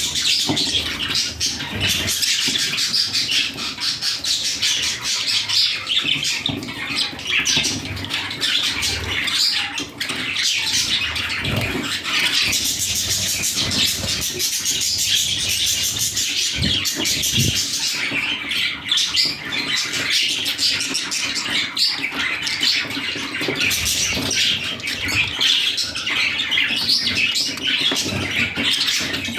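A group of budgerigars (budgies) chattering continuously, a dense, unbroken mix of high chirps and warbles.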